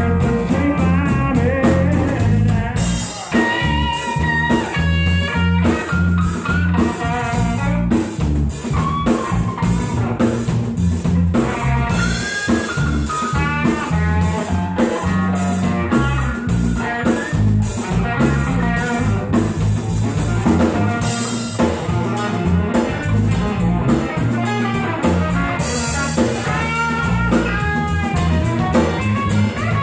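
Live three-piece band playing an instrumental passage: a semi-hollow electric guitar plays melodic lead lines over an electric bass and a drum kit keeping a steady beat with cymbal strikes.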